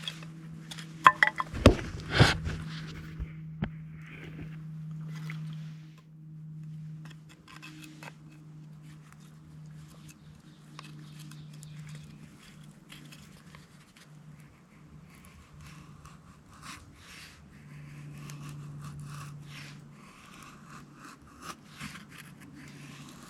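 Scandinavian-grind survival knife shaving thin curls off split wood to make feather sticks: a run of short scraping strokes, with a few sharp knocks about two seconds in.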